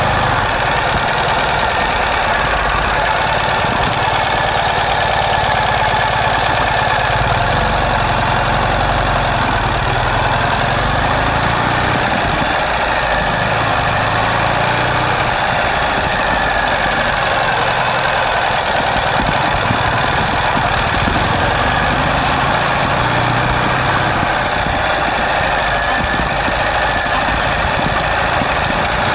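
Sidecar motorcycle's flat-twin engine running steadily under way, heard close up from the sidecar.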